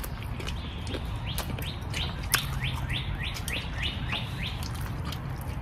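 A songbird singing: a fast run of about a dozen short falling notes, about four a second, from about one second in to about four seconds in. A few sharp clicks and a steady low background run underneath.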